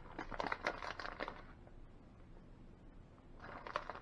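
Plastic bag of shredded cheese crinkling as it is handled and reached into, in two bouts: for the first second and a half, and again briefly near the end.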